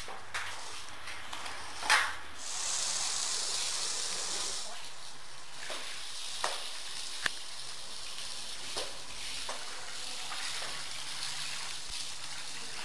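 Water spraying from a hose wand onto a soaked rug, a steady hiss and splash that swells for a couple of seconds early on, with a few sharp clicks.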